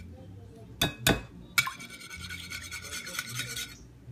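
A utensil beating egg-and-milk batter in a glass pan: a few sharp knocks about a second in, then a scraping, rubbing stretch against the glass that fades near the end.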